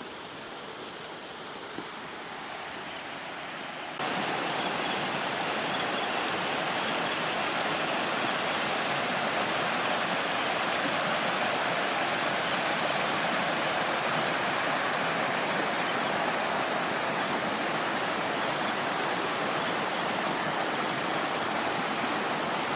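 Running water of a small waterfall and stream, a steady rushing hiss; it jumps suddenly louder about four seconds in and then holds steady.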